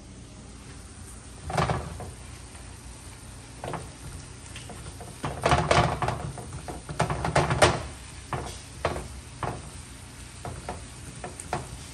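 A spatula scraping and knocking against a nonstick frying pan as sizzling ground meat is stirred and broken up. The clatters come irregularly and are busiest in the middle.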